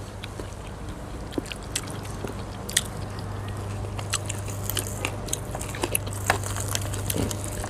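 Close-up mukbang eating of crunchy deep-fried food: many short, sharp crackling bites and chewing. A steady low hum runs underneath.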